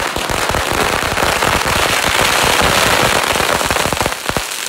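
A string of firecrackers going off in a rapid, continuous crackle of bangs that starts abruptly, then thins to a few scattered pops near the end.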